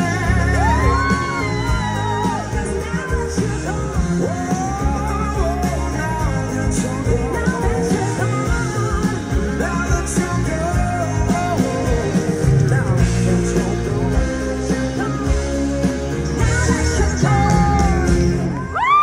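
Live band playing a pop-rock ballad with a singer's voice holding long, gliding melodic lines, heard through a phone in the audience. The music drops off suddenly near the end.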